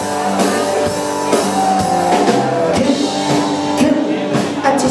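Live rock band playing: electric guitars and drum kit with a steady beat, and a male singer on vocals.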